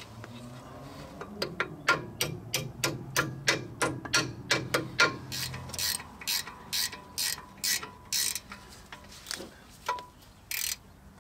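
Hand ratchet wrench clicking in a steady run of about three clicks a second, with a few scattered clicks near the end. A low hum runs under the first half.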